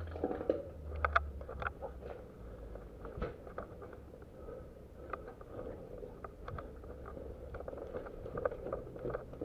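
Irregular scuffs, small clicks and rustles of a person moving on foot with gear, heard close up on a body-worn camera, with a low rumble near the start.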